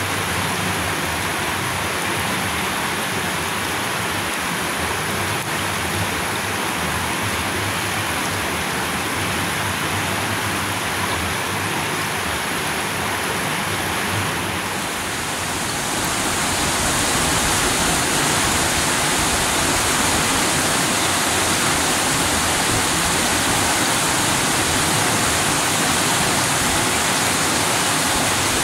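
Shallow river water rushing and splashing over rocks in a steady hiss. About halfway through it becomes louder and brighter.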